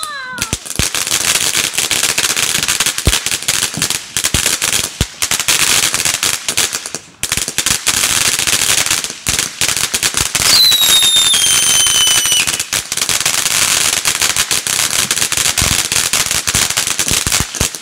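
Black Cat "The Rock" ground fountain firework firing: dense, continuous crackling, with a falling whistle about ten seconds in.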